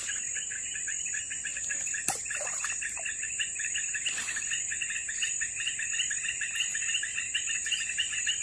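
Tropical riverside insect chorus: a steady high-pitched buzz over a rapid, evenly pulsing trill, with a few faint clicks about two seconds in.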